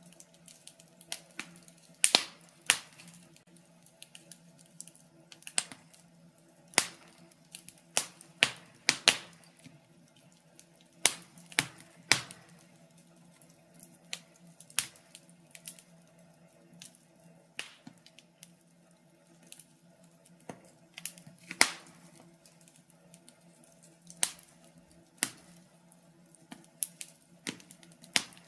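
Wood fire crackling in a fireplace: irregular sharp pops and snaps at uneven intervals, over a faint steady low hum.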